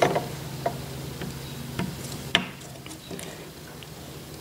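Light metallic clicks and taps as a Zamak change gear is wiggled onto the keyed end of an Atlas lathe's lead screw, a handful of them scattered irregularly, the loudest a little past halfway. A steady low hum sits underneath.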